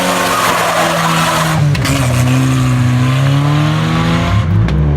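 A car being driven hard under heavy throttle, its engine note holding a fairly steady pitch that drifts slightly, with loud tire and wind noise.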